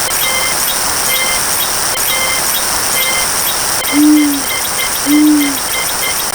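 Steady rain-like hiss with faint short chirps repeating about once a second. About four seconds in, low hooting calls begin, twice, about a second apart.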